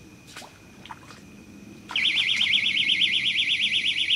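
Electronic bite alarm on a catfish rod sounding, a loud high-pitched tone warbling quickly up and down, starting about two seconds in. A few faint clicks come before it.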